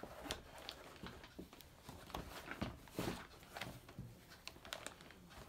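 A soft leather chisel roll pouch being unfolded and smoothed out by hand, with faint scattered rustles and light taps.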